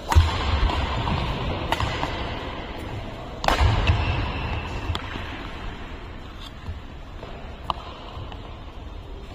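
Badminton rally: sharp cracks of rackets hitting the shuttlecock, the loudest three coming a second and a half to two seconds apart early on, with thuds of feet on the court and fainter clicks later as the rally ends.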